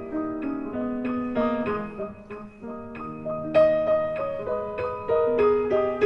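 Background music: a piano or electric piano playing a melody of struck notes.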